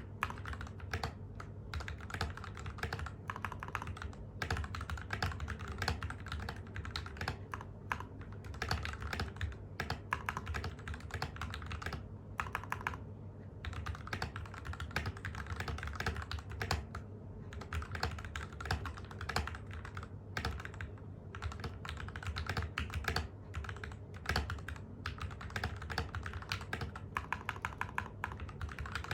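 Typing on a TM680 mechanical keyboard with lubed Gateron Milky Black linear switches, ABS OEM-profile keycaps, and foam in the case and under the plate. A fast, continuous run of keystrokes with a couple of brief pauses, recorded through a phone microphone.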